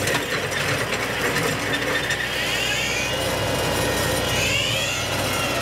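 Lane Shark hydraulic cutter head on a tractor's front loader, its spinning blade chewing through cedar branches over the tractor's running engine. A whine rises and falls twice.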